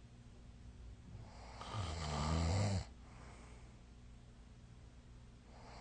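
A sleeping person snoring: one long, rough snore about a second in whose pitch rises and then falls, followed by a few seconds of quiet breathing, with the next snore just starting at the end.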